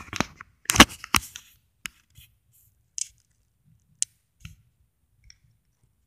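Small plastic action figure being handled: a quick cluster of clicks and knocks in the first second or so, then a few scattered light clicks of plastic parts.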